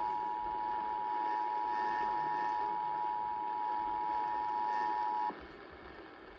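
Emergency Alert System two-tone attention signal (853 Hz and 960 Hz sounding together) over AM radio: a steady, harsh dual tone that cuts off suddenly about five seconds in, leaving faint AM static. It is the alert that precedes the spoken warning message.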